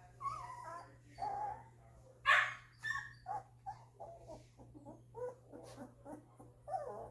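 Two-week-old golden retriever puppies whimpering and squealing in a string of short, high cries, with one sharper, louder yelp about two seconds in.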